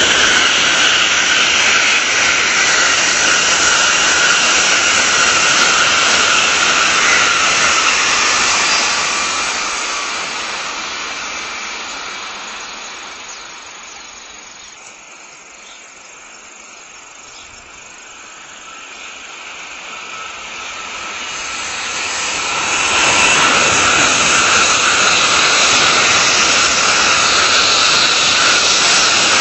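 Tokaido Shinkansen bullet trains passing at high speed: a loud rushing noise with a steady whine in it that fades away over several seconds. About twenty seconds in, another train's rush builds up and stays loud as it goes by.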